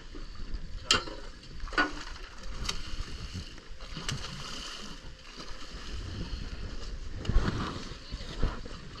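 Small fishing boat on the water: a steady hiss of wind and water with a handful of irregular knocks and bumps, the loudest about seven seconds in.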